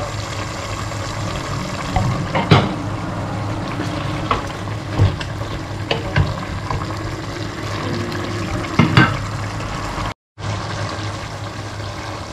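Pork bubbling in its sauce in a stainless steel pot, stirred with a wooden spoon that knocks against the pot a few times.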